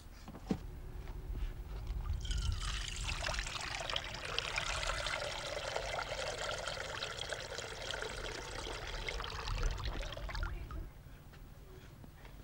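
Liquid pouring in a steady stream from the spout of a hanging goatskin bag into an enamel basin. It starts about two seconds in and stops near the end.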